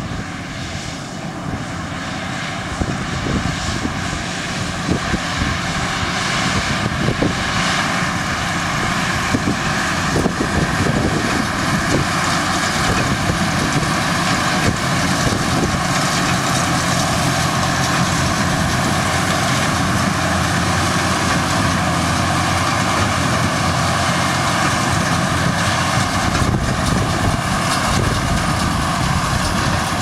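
Fendt 942 Vario tractor's six-cylinder diesel engine running steadily under load while it tows a Massey Ferguson 2290 large square baler, with the baler's mechanism working. The drone grows louder over the first several seconds as the rig comes closer, then holds steady.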